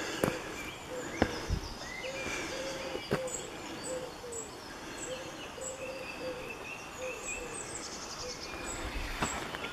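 Woodland birdsong: a low pitched note repeated about every half second, with shorter high chirps above it, and a few footsteps on the path.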